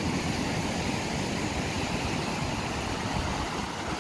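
Ocean surf breaking on a sandy beach: a steady rush of noise with an uneven low rumble underneath.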